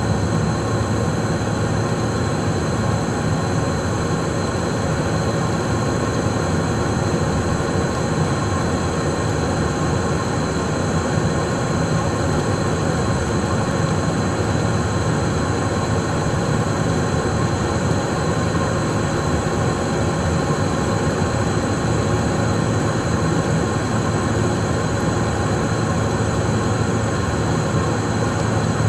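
Steady in-flight cockpit noise of a Cessna Citation Mustang light jet: its twin Pratt & Whitney PW615F turbofans and the rushing airflow make an even hum. A few constant high tones run over the hum.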